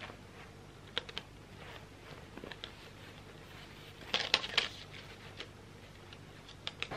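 Clothes on plastic hangers being handled: scattered light clicks and rustles, with a louder cluster of clacks a little past the middle.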